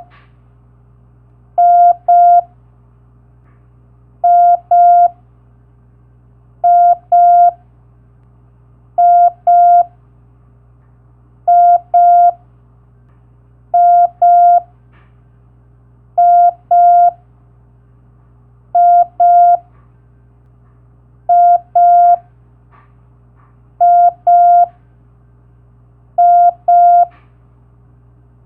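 Morse code letter M (dah-dah) as a pair of long beeps of about 700 Hz, repeated about every two and a half seconds, eleven times. A faint steady low hum runs underneath.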